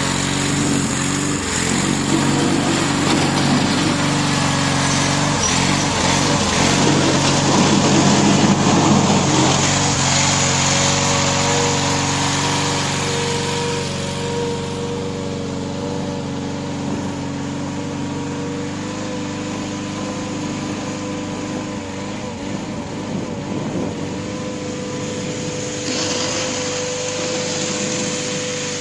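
Backhoe loader's diesel engine running under load, with loud clattering and rough noise for about the first ten seconds, then settling into steadier running with small changes in engine speed.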